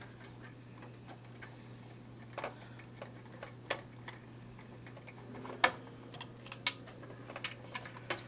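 Scattered small clicks and taps of a screwdriver and a plastic cooling fan being handled as the fan is unscrewed from its mount inside a DLP TV, with one sharper knock a little past halfway, over a steady low hum.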